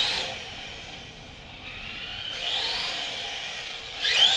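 LaTrax Rally 1/18-scale electric RC car's motor whining as it speeds across a hardwood floor, the pitch rising and falling with the throttle. It is loudest about four seconds in as the car passes close by.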